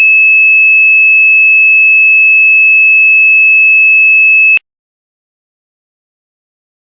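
A loud, steady, high-pitched electronic beep: a single pure tone held for about four and a half seconds, then cut off abruptly.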